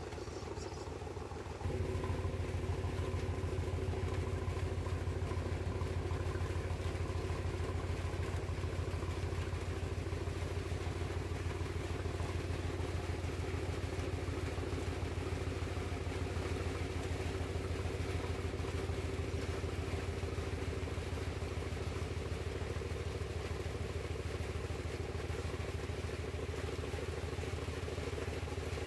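Diesel engine of a wooden riverboat running steadily with a low, even throb, getting louder about two seconds in.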